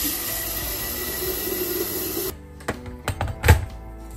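Water running from a tap into a sink, shut off abruptly a little over two seconds in. A few sharp knocks follow, over soft background music.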